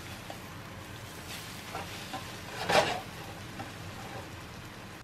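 Eggs frying in a nonstick pan, sizzling while a plastic spatula scrapes and turns them. There is one louder scrape a little past halfway.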